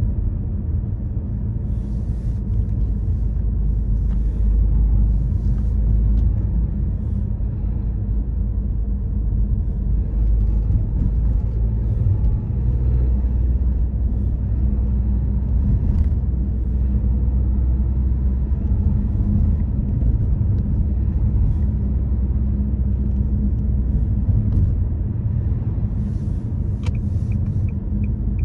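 A moving car's road and engine noise heard from inside the cabin: a steady low rumble. Near the end a turn indicator starts ticking faintly, about three ticks a second.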